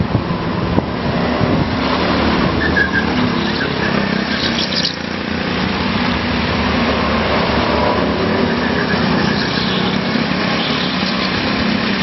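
Go-kart engines running on the track, a steady engine drone that shifts a little in pitch as the karts pass.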